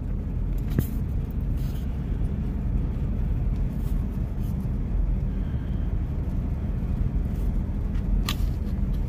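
Steady low rumble of a car driving, heard from inside the cabin, with a couple of faint brief ticks.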